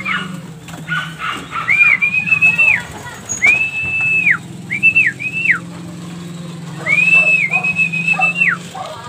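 A person whistling a string of about six short notes to call a racing pigeon into the loft. Each note rises to one high pitch, holds briefly and then slides down, and two pairs come in quick succession.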